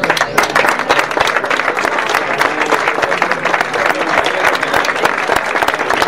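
A crowd applauding, with dense clapping from many hands.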